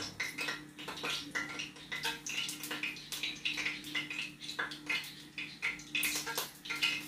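Pot of water heating on a gas stove burner: irregular light ticking and crackling with a faint watery hiss, over a steady low hum.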